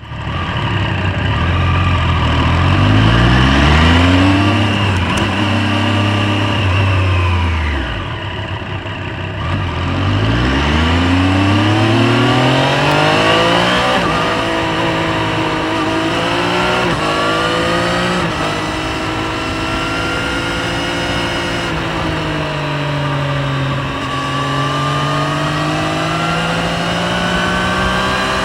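Motorcycle engine under way: the revs climb and hold, fall away about eight seconds in, then climb again and settle into a steady run with small dips in pitch.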